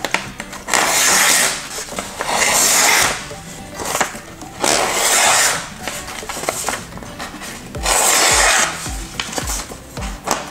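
Freshly sharpened kitchen knife slicing through sheets of printer paper: four drawn cuts, each about a second long, with the paper rustling as the blade goes through.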